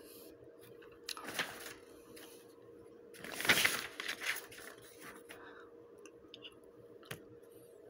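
Soft rustling of paper and handling noise, twice, with a faint click near the end, over a faint steady hum.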